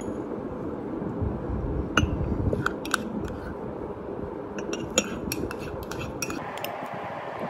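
Metal teaspoon clinking and scraping against a small cup while stirring food colouring into a creamy mixture. A few clinks come about two seconds in, then a quick run of clinks around five to six seconds in, over a steady background hum.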